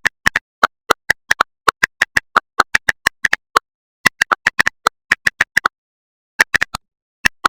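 A run of short, sharp clicks against total silence, several a second and unevenly spaced, pausing twice.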